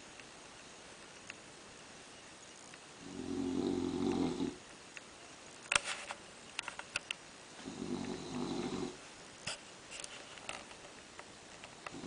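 Five-month-old boxer puppy snoring in its sleep: two low snores about four and a half seconds apart, each lasting about a second and a half, with a few short sharp clicks in between.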